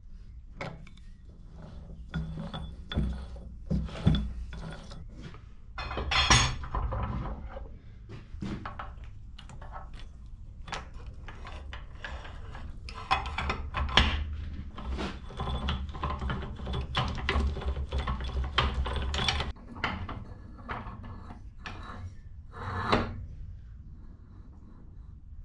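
Metal parts of an old shaper's gearing being fitted by hand: a steel spanner and cast-iron gear and pulley parts clinking and knocking. It comes as an irregular run of clicks and knocks, busiest through the middle, with a couple of louder knocks.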